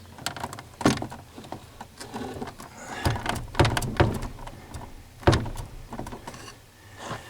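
A series of sharp knocks and clunks, about five strong ones, from a Ford F250 truck door being shifted on its partly unbolted lower hinge.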